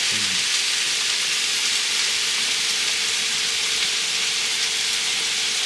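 Bacon lardons and mushrooms sizzling steadily in a hot frying pan.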